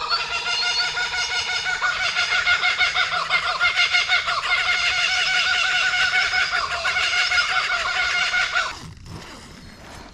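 A loud chorus of many overlapping, rapidly wavering animal calls, cutting off abruptly about nine seconds in.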